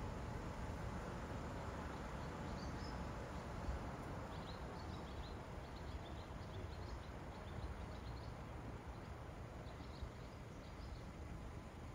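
Outdoor street ambience: a steady low rumble of background noise with scattered short, high chirps of small birds.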